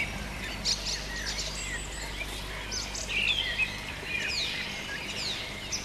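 Several small birds chirping and singing in quick, sweeping notes, over a faint steady low hum.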